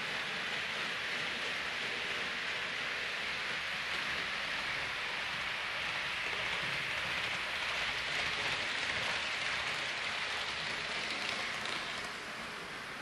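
Hornby OO gauge Class 390 Pendolino model train running on the layout's track: a steady rushing hiss of wheels on rail and the motor, a little quieter near the end.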